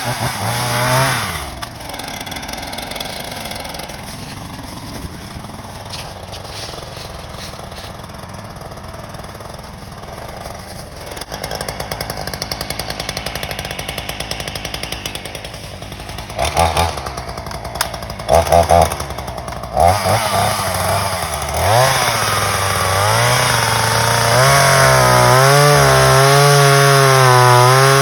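RYOBI 16-inch two-stroke gas chainsaw idling, blipped briefly three times, then run up to high revs near the end, its pitch wavering while held at full throttle.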